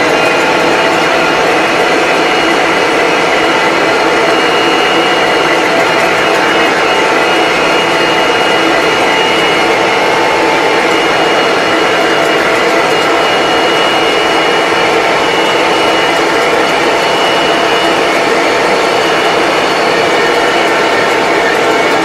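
Massey Ferguson tractor engine running steadily at road speed, heard from inside the cab, with a steady high whine over the engine note.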